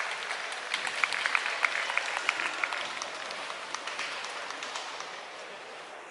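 Crowd applauding, with many sharp individual claps in the first three seconds, then the applause dies away.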